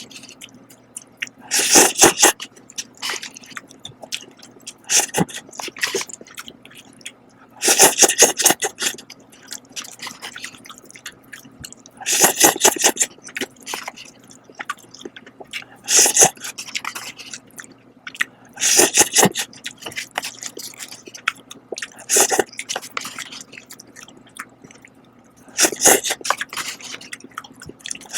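Someone eating Shin Ramyun cup noodles: noodles slurped in short loud bursts about every three to four seconds, with fainter chewing between.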